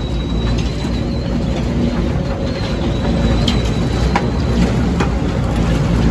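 Trommel screen running with a steady low rumble and a thin, high-pitched squeal over it, plus a few sharp clicks; the squeal is a squeaking bearing, which sounds like a dying cat.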